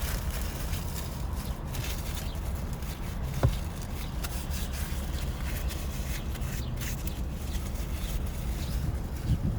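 Eating noises: faint clicks and scrapes of chewing and of a utensil, over a steady low rumble, with one sharp knock about three and a half seconds in.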